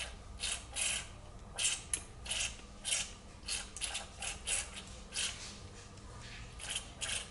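Aerosol carburetor cleaner sprayed in a quick series of short hissing bursts, about fifteen in all, through a straw nozzle into the small fuel passages of a Suzuki TS185ER carburetor, flushing out the passages during a clean.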